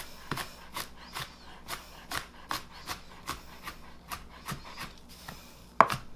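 Kitchen knife chopping garlic cloves on a cutting board, mincing them toward a paste: steady light taps about two to three a second, with a louder knock near the end.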